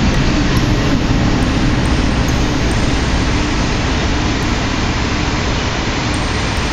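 Loud, steady wall of electronic noise from oscillators in a live noise-music set: dense hiss with a faint low tone held underneath.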